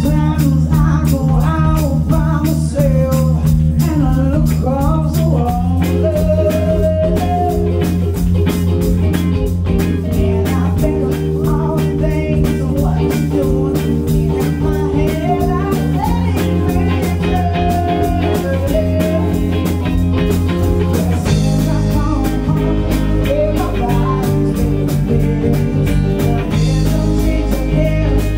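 Live band playing: two electric guitars and a drum kit, with a woman singing lead. The chords change every few seconds.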